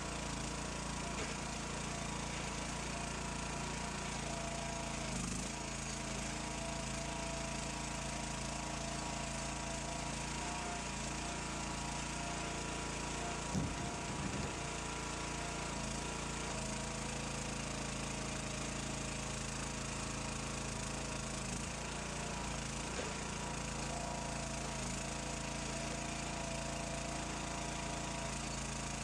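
Small engine running steadily at an even speed, with one brief louder knock about halfway through.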